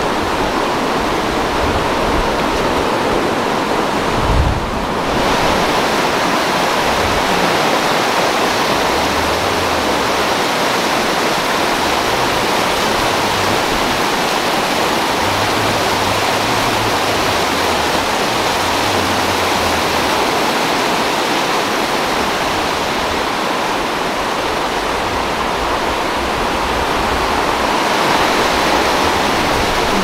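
River water rushing steadily over rapids, a loud even roar with no letup. There is one brief low thump about four seconds in.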